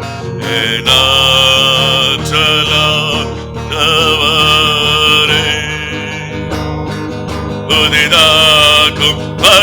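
Worship song: long held sung notes over steady instrumental backing.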